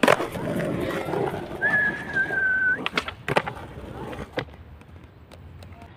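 Skateboard wheels rolling on concrete, with sharp clacks of the board hitting the ground at the start and several more through the middle. For about a second, a thin high whistling tone holds steady.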